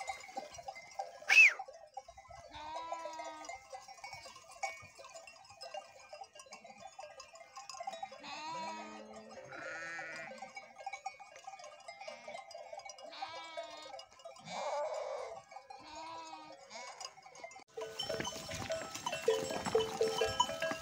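Flock of grazing sheep bleating here and there, several short calls a few seconds apart, over a faint steady tinkle of livestock bells. Near the end comes a louder rustling noise.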